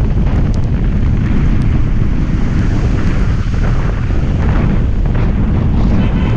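Wind buffeting the microphone of a camera mounted outside a moving car, a loud, steady rumble, with the hiss of rain and tyres on the wet road.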